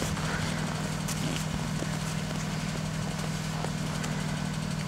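Steady low hum of an idling car engine, with a few faint clicks.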